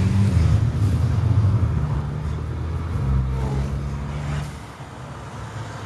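Volkswagen GTI Mk V's turbocharged four-cylinder engine pulling under throttle, heard from inside the car, easing off twice with a clear drop about four and a half seconds in.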